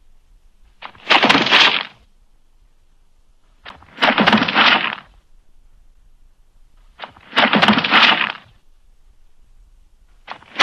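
Human body falls from a sound-effects library: three separate falls about three seconds apart. Each is a faint click followed by about a second of noisy impact, with another fall beginning at the very end.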